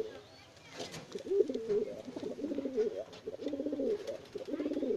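Domestic pigeons cooing, a run of low, rolling, warbling coos one after another, with a short click about a second in.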